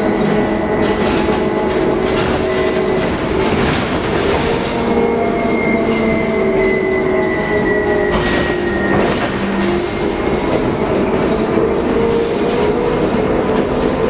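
Cabin of a 2015 Proterra Catalyst battery-electric bus under way: steady road and cabin noise with the electric drive's whine, several tones shifting in pitch, a high one falling slowly midway as the bus slows. Occasional rattles and knocks from the cabin.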